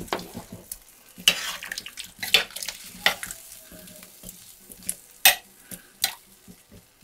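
Metal spoon pushing potato chunks off a plastic chopping board into a slow cooker's pot and stirring them through a liquid stew, with irregular scrapes and clinks of the spoon against the pot, the loudest about five seconds in.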